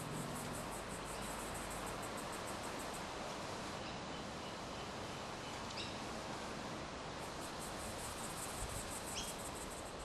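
Outdoor evening ambience: a steady hiss with an insect chirping in rapid, even high-pitched pulses that stop for a few seconds in the middle, and a few faint short chirps.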